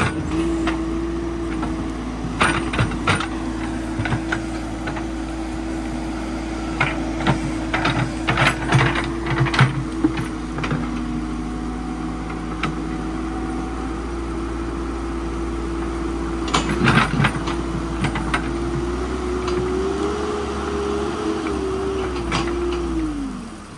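Cat wheeled backhoe loader's diesel engine running steadily as the backhoe arm works, with scattered clanks and knocks from the bucket and arm digging mud and stones. Near the end the engine note rises briefly, then falls away.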